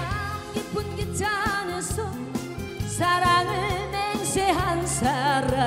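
A woman singing a Korean song in Korean into a handheld microphone over instrumental accompaniment, holding notes with a wide vibrato.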